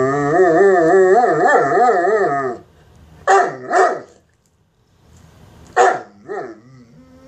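A mastiff begging for food, vocalising in a long, loud, wavering howl-like whine that breaks off about two and a half seconds in, followed by two pairs of short yips.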